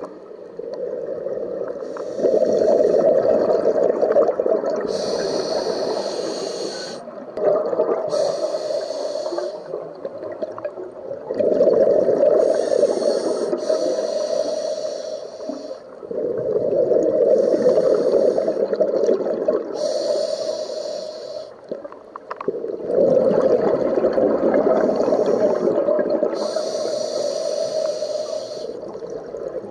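Scuba diver breathing through a regulator underwater: a hiss on each inhale and a long rush of exhaled bubbles, about five breaths in all, each exhale starting suddenly and fading away.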